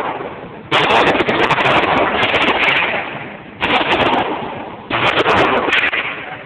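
Glock 17 9mm pistol firing three shots: one about a second in, then two more near the end about a second apart. Each shot is sudden and loud, then dies away slowly.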